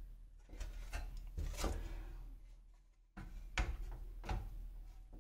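Amiga A1200 motherboard being fitted into a metal tower case: several light knocks and clicks as the board is set down and shifted into place.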